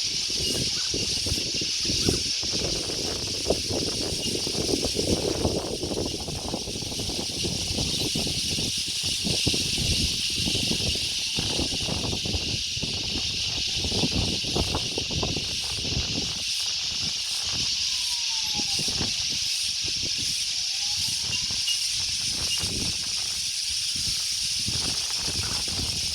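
Wind gusting on the microphone in an open paddock, an uneven low rumble, over a steady high-pitched hiss.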